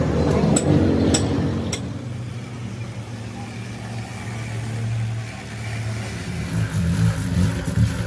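Sharp taps about every half second, stopping about two seconds in, over a steady low mechanical hum that turns uneven near the end.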